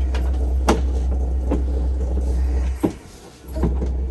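Steady low road rumble inside a moving car, with a few sharp clicks over it. The rumble drops out briefly about three seconds in.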